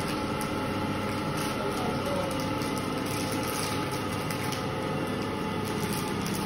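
Steady mechanical background hum, with faint crinkling of a chocolate bar wrapper being opened.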